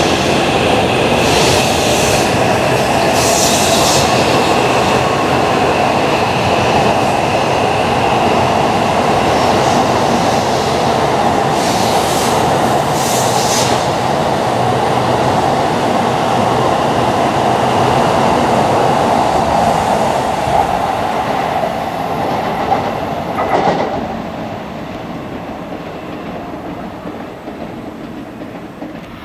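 N700A Shinkansen train running past on slab track: a loud, steady rumble of wheels with a held whine. It ends in a few sharp clacks as the last cars go by about 21 to 24 seconds in, then dies down to a fainter fading sound.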